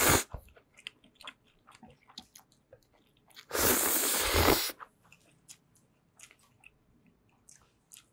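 Close-miked mouth sounds of a man eating bibim-myeon (spicy cold noodles). A long slurp about three and a half seconds in lasts about a second, and the tail of another comes right at the start. Between and after them come soft, wet chewing clicks.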